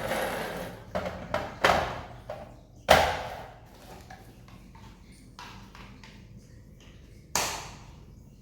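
A series of separate sharp knocks and clacks with a short ring after each. The loudest comes about three seconds in and another near the end, with quiet gaps between.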